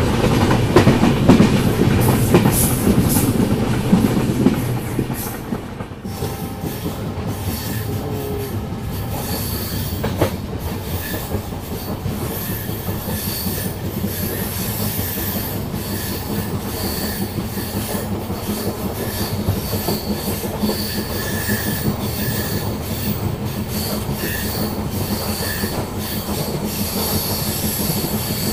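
Indian Railways LHB passenger coaches running at speed, heard from a coach window: a steady rumble and rattle of the wheels on the rails. After a drop in level about five seconds in, the rumble goes on with short, repeated high squeals from the wheels on a curve.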